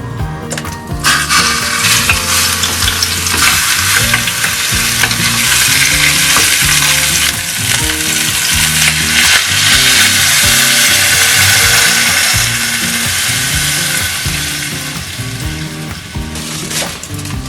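Food frying, a loud steady sizzle that starts about a second in and eases off near the end, with background music underneath.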